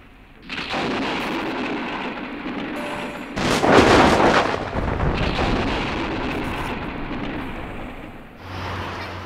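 Loud rushing noise from film sound effects, starting suddenly about half a second in, with a heavy boom-like burst about three and a half seconds in.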